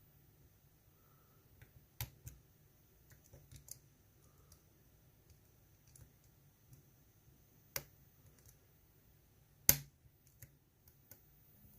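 Faint, scattered metallic clicks of a lock pick working the pin stacks inside a GEGE euro cylinder, a few light ticks and a sharper click near the end.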